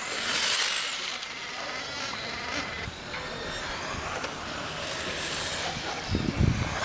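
1/10-scale electric RC race cars with brushless motors whining as they run around the track, with faint rising and falling pitch as they speed up and brake. A short low rumble comes about six seconds in.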